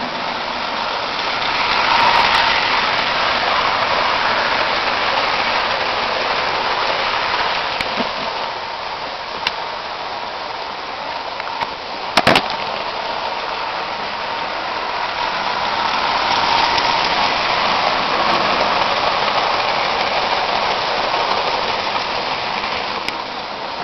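Lionel 681 O-gauge turbine locomotive and boxcars running on three-rail track: a steady rattling rumble of wheels on the rails and the locomotive's motor, swelling louder twice as the train passes close. One sharp clack about halfway through.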